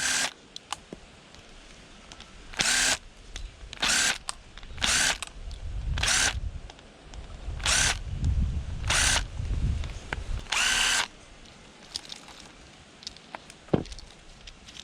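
Power drill whirring in short bursts, about eight in all, each under a second, with a low rumble underneath in the middle stretch.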